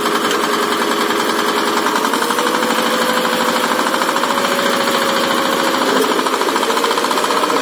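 VST Shakti 130 DI power tiller's single-cylinder diesel engine running with a rapid, steady thudding beat; the engine note rises slightly about two seconds in and drops back near the end. The clutch is not engaging properly, which the owner puts down to water in the clutch plate.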